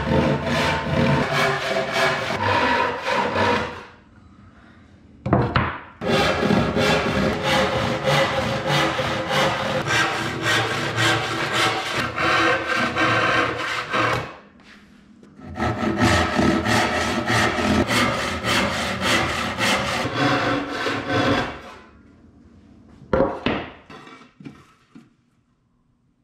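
Western hand saw cutting through cherry board in three long runs of quick, rhythmic push-and-pull strokes, with short pauses between runs.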